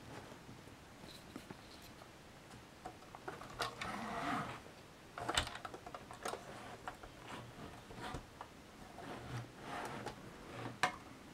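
Faint handling noise: scattered light clicks and soft rubbing as a model Leyland Atlantean double-decker bus is turned and moved about on a cloth-covered table.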